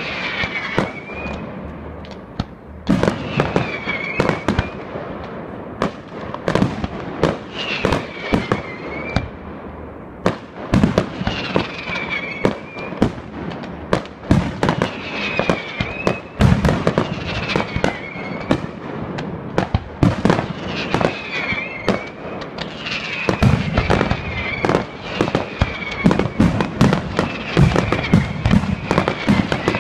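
Professional aerial fireworks display: a rapid run of bangs and crackles from launching and bursting shells, growing denser and heavier about three-quarters of the way through.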